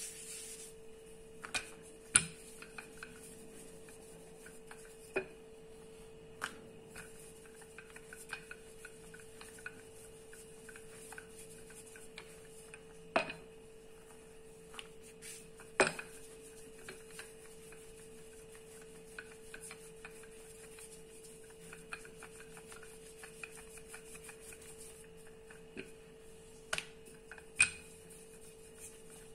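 Hands and a wooden rolling pin working roti dough on a countertop: faint rubbing and soft ticks, with a few sharper knocks, over a steady hum.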